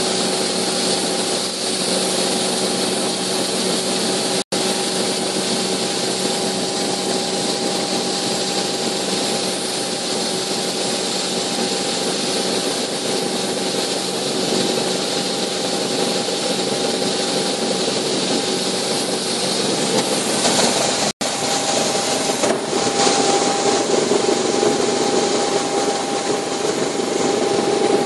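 Cabin noise inside a Bell 430 twin-engine helicopter in flight: the turbine engines and rotor running steadily, with a constant whine from the drivetrain over a broad rushing noise. It grows a little louder and heavier about three quarters of the way through, and the sound cuts out for an instant twice.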